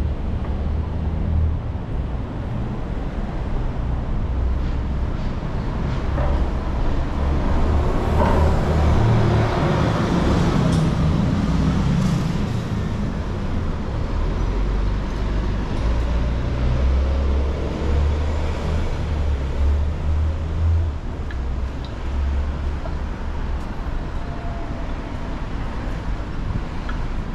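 Street traffic, with a vehicle passing about eight to twelve seconds in, over a low rumble of wind on the microphone.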